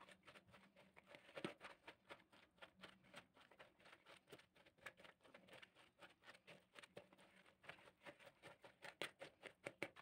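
A fork mashing boiled, drained cauliflower in a plastic mixing bowl: a quick run of faint taps, coming faster near the end.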